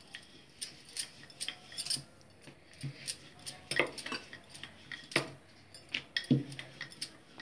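Wooden rolling pin knocking and rolling on a granite counter as wheat dough is rolled out into a chapati, with glass bangles on the wrist clinking. Irregular sharp clicks and knocks at a few-per-second pace.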